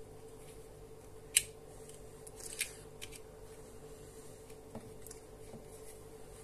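USB plug of a flexible LED lamp clicking into the USB output port of a LiitoKala Lii-100 battery charger: one sharp click about a second and a half in and a weaker one about a second later, followed by a few faint ticks of handling, over a faint steady hum.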